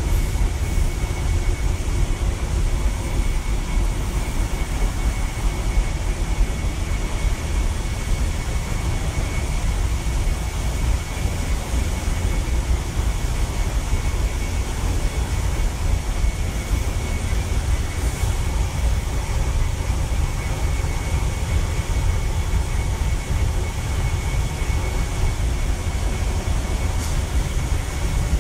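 Steady low rumble of a ship's engine-room machinery heard inside the engine control room, with a faint steady high whine over it.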